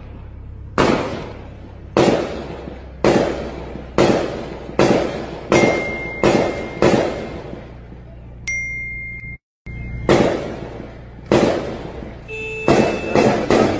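Gunshots fired singly, roughly one a second, each sharp crack followed by an echoing tail, heard from inside a car with its engine humming low underneath.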